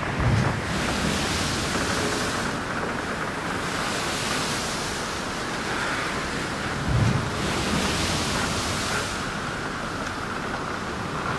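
A steady rushing wash like waves on a shore, swelling and easing every few seconds, with a low thud just after the start and another about seven seconds in.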